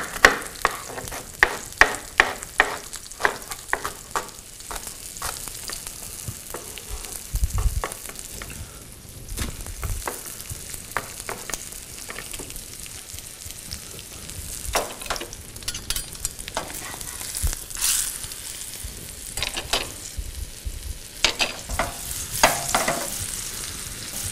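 Knife dicing an onion on a wooden cutting board, a quick run of strokes about two a second that stops four or five seconds in. Under it and after it, a floured chicken breast sizzles in hot oil in a frying pan, with a few scattered knocks and clicks.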